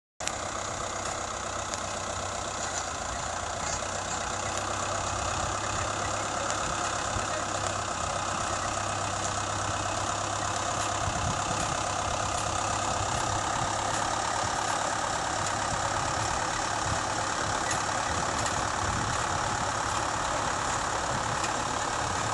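Tractor engine running steadily while pulling a trailed potato harvester, mixed with the harvester's dense mechanical rattle, growing a little louder over the first few seconds.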